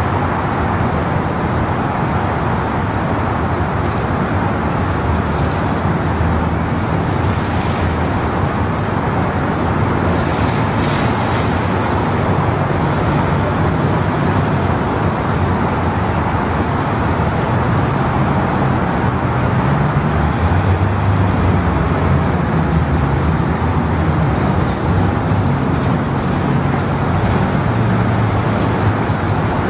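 Steady city street traffic noise: a continuous hum and hiss of cars running and passing.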